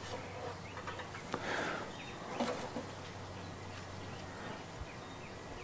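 A few faint clicks and short rustles of plastic engine parts being handled, over a low steady hum.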